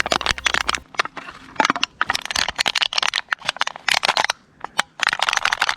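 An empty metal drink can crumpled and squeezed by hand, giving loud metallic crinkling and crackling in bursts with short pauses. It is used as a makeshift distress signal, a metallic noise that nothing in nature makes.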